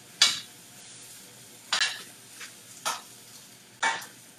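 Tongs tossing bok choy leaves in a sauté pan: four sharp clatters about a second apart, over a faint steady sizzle with the heat turned low.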